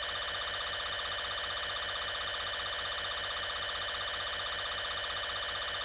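Steady electronic alarm tone: an unbroken, buzzing drone with a fast, even flutter that holds one pitch and level.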